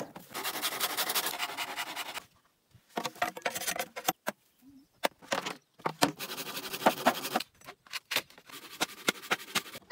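Dry crackling and rustling broken by scattered sharp knocks: green bamboo poles being handled and worked with a machete over dry grass and brush.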